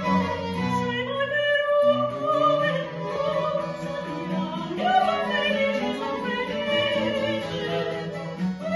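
Soprano singing a Baroque Italian vocal piece, accompanied by recorder, baroque violin, baroque cello and harpsichord in live performance.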